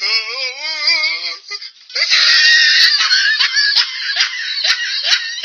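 Comic laughter sound effects, high-pitched and edited: a warbling, wavering laugh for about a second and a half, then after a short pause a loud run of rapid, pulsing high cackles.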